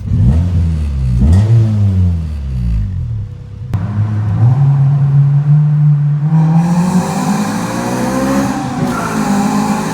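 Honda B16A2 four-cylinder engine with an aftermarket intake and cat-back exhaust, revved in several quick up-and-down blips, then held as its pitch climbs slowly over several seconds.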